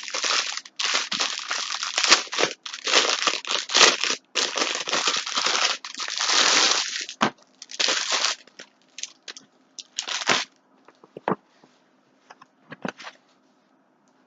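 Plastic packaging crinkling and rustling as a shirt is taken out and handled: dense crinkling for about eight seconds, then a few shorter, scattered rustles that die away near the end.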